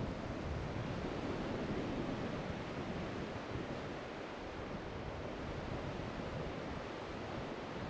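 Ocean surf: a steady rush of waves breaking, with some wind on the microphone.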